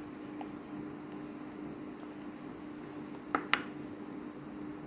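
Wet glue slime being mixed by hand with borax activator, faint squishing over a steady low hum, with two sharp clicks about three and a half seconds in.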